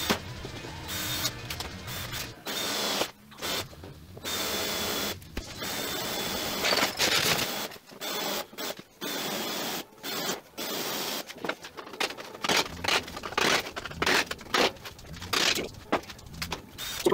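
Cordless drill boring into the rusty sheet steel of a 1954 VW microbus body, run in repeated starts and stops of one to two seconds, with a steady high whine during the longer runs and quicker short pulses near the end.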